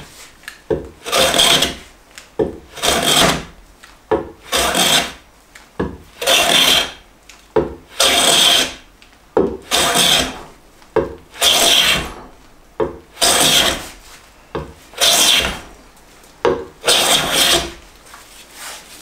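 Metal hand bench plane cutting shavings from a rough-sawn board: ten strokes, about one every 1.7 seconds, each a hissing swish about a second long that opens with a short knock. This is the face being cleaned up by hand planing.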